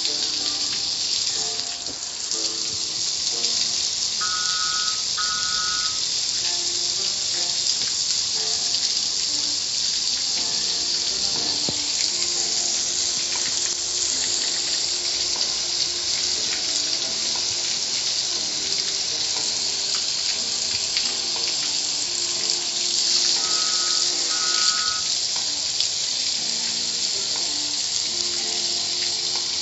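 Car wash water jets spraying steadily onto a car, a constant hiss, with faint music underneath. Two short pairs of tones sound about four seconds in and again near the end.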